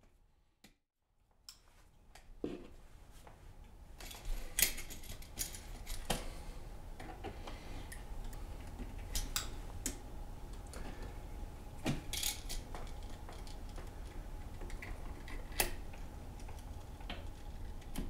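Needle-nose pliers and stiff copper wire being handled while wire ends are bent into hooks and fitted onto a wall switch's terminal screws: scattered small metal clicks and light rustling. It starts a couple of seconds in, after near silence.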